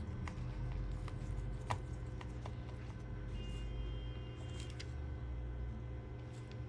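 Scattered light clicks and taps of small repair tools working on a Samsung Galaxy A20 smartphone during its screen replacement, over a steady low hum.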